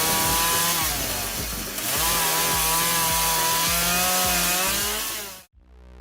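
Chainsaw cutting through a log, the engine running hard with its pitch dipping twice as the chain bogs under load, then cutting off abruptly about five seconds in.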